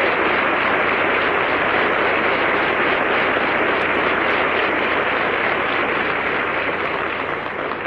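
Audience applauding after a song, thinning out near the end.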